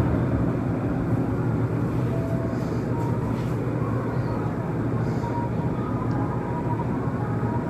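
Desktop PC's case fans running with a steady whirring hum as the computer starts up.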